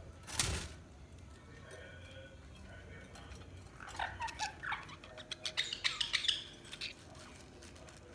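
Budgerigars chirping: a run of quick, sharp chirps and clicks from about four seconds in to near seven seconds. A brief loud noisy burst about half a second in, the loudest moment, comes first.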